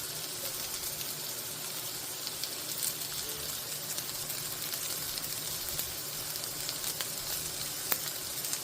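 Korean jeon (savoury pancakes) sizzling in hot oil in a frying pan, a steady crackling hiss. Two sharp clicks near the end.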